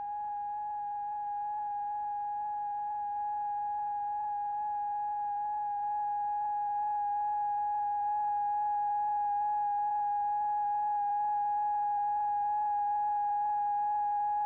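Steady pure tone near 800 Hz with faint higher overtones, growing gradually louder in small steps: the oscillator's driving tone that vibrates the experiment.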